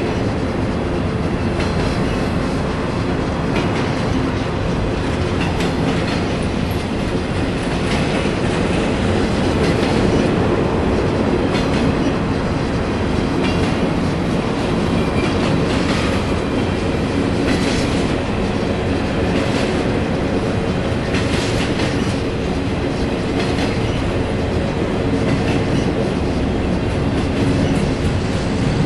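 Empty intermodal flatcars of a BNSF freight train rolling past: a steady, loud noise of steel wheels on rail, with some clicking and brief higher-pitched squeals here and there.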